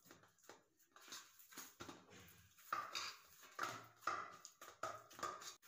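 Dough greased with ghee being kneaded by hand in a stainless steel plate: soft repeated pushes and squelches of the dough against the metal, coming about twice a second in the second half.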